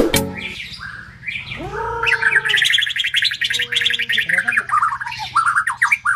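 White-rumped shama (murai batu) singing: a fast twittering song of rapid trills, with a few low, arching whistled notes mixed in.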